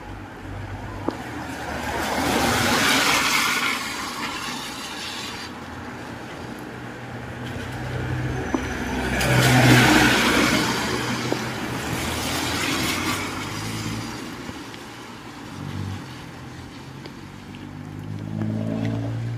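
Cars driving past on a wet road, their tyres hissing on the wet surface over a low engine hum. Two cars pass, the louder about ten seconds in, and another draws near at the end.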